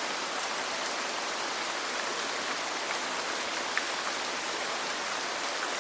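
Steady rain falling on a roof, an even hiss of many drops, with a couple of faint crackles from a low wood fire.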